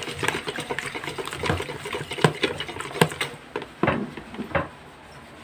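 Wire whisk beating raw eggs in a bowl: a fast, rattling run of clicks from the wires against the bowl that stops about three seconds in, followed by a couple of single louder knocks.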